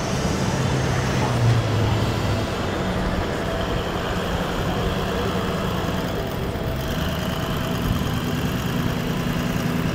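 Toyota LandCruiser 200 Series four-wheel drive driving over a soft beach sand track, its engine running steadily with a low hum that steps in pitch a couple of times.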